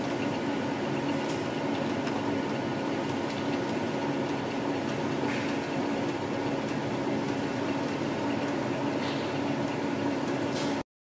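Steady hum and airy hiss of running laboratory equipment and ventilation, with a steady low tone in it and a few faint ticks. The sound cuts out abruptly for a moment near the end.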